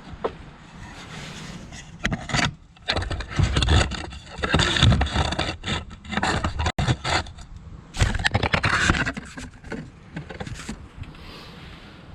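Irregular scraping and rubbing handling noises, with a few sharp clicks, as a part is carried and worked on at the truck; the loudest stretches come in surges between about two and ten seconds in.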